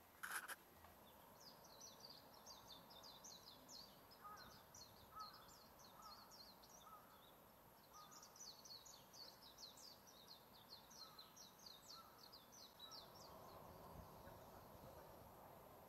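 Faint birdsong from the surrounding forest: two runs of rapid, high chirping twitter, one a couple of seconds long and a second of about five seconds, with a few single lower notes between them over quiet background. A short sharp click sounds right at the start.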